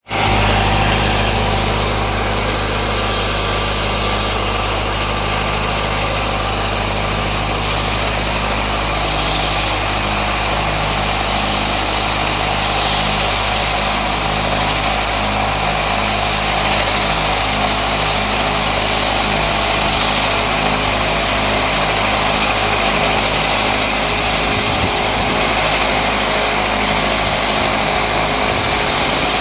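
Tractor engine running at a steady speed while powering a fruit-tree leaf-removal machine, a constant low engine hum under an even high hiss.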